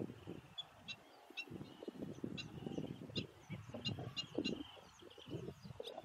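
Birds giving short, high calls, about ten single notes spread unevenly over several seconds, over a low background rumble.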